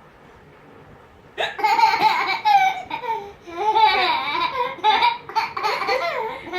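A young child laughing and babbling in a high-pitched voice, starting about a second and a half in after a short quiet.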